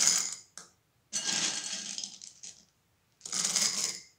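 Handfuls of plum stones poured into a glass jar, rattling and clattering against the glass and each other in three pours, the middle one the longest.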